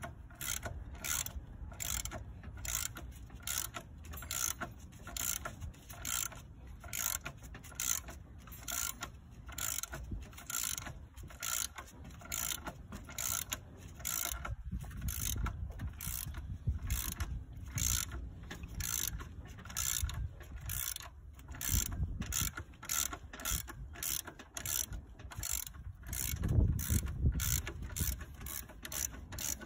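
Ratcheting wrench clicking in a steady rhythm, about two to three clicks a second, as it is swung back and forth on a bolt in an engine bay.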